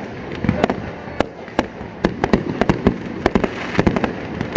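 Aerial fireworks display exploding in a rapid, irregular series of bangs and pops, several a second, over a continuous crackle.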